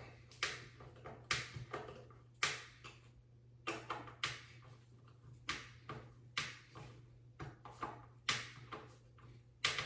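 About a dozen sharp clicks and short scrapes at uneven intervals, roughly one every half-second to second, from small screws being hand-tightened with a screwdriver into cabinet door hinges. A low steady hum runs underneath.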